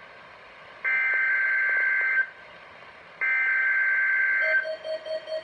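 Emergency Alert System SAME header: two digital data bursts, each about a second and a half long with a gap of about a second between them. These are the second and third of the three header bursts that open a Required Weekly Test. Near the end a fainter pulsing lower tone begins.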